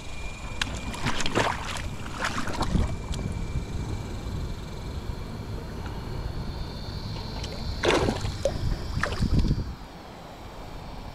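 River water splashing and sloshing in two bouts, one about a second in and one around eight seconds, over a steady low rumble.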